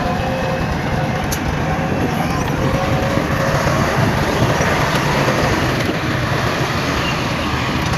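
Heavy diesel earthmoving machinery, a bulldozer or dump truck, running steadily under load, with a faint whine drifting in pitch during the first few seconds.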